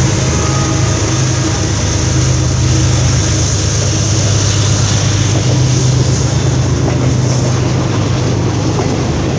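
CSX freight train passing close by, a string of autorack cars rolling past on steel wheels with a steady, loud rumble.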